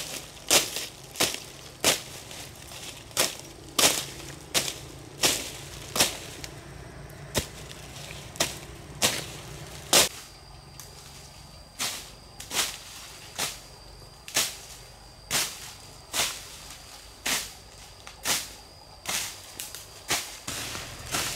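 Repeated sharp blows of a hand tool striking wood, about one and a half a second, with a pause of about two seconds near the middle.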